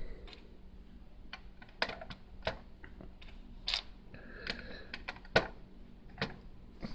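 A series of faint, irregular small clicks and taps, about a dozen over several seconds, like small hard objects being handled.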